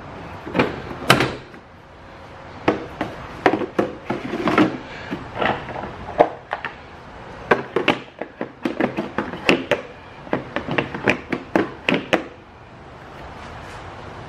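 Hard plastic knocks and clicks from handling a Griot's Garage compact sit-on creeper as its black plastic tray is fitted to the front of the seat. The knocks come irregularly, thickest in the second half, and stop about twelve seconds in.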